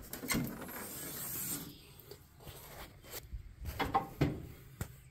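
Rubbing and rustling of a hand and handheld phone moving over the tractor's bodywork, followed by several short, light clicks and knocks.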